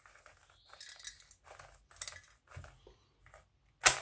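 Oracle Bone Script 3x3 puzzle cube being turned hard to test corner cutting: a string of light clicks and clatters as the layers turn, with the internal springs audible, then one sharp, loud clack just before the end.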